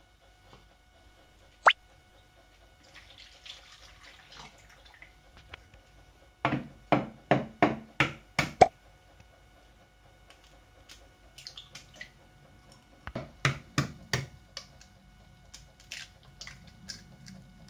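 Milk poured into a plastic mixing bowl, then eggs knocked against the bowl to crack them: a run of sharp taps about six seconds in and another about thirteen seconds in.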